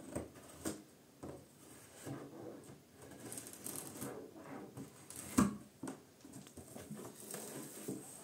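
Cardboard box being opened by hand: packing tape peeled back and the flaps pulled apart, a run of irregular scrapes, rustles and small knocks, with one sharper knock about five seconds in.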